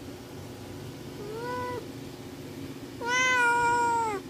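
Tuxedo kitten meowing twice for attention: a short, fainter meow about a second and a half in, then a louder, longer meow near the end. A steady low hum runs underneath.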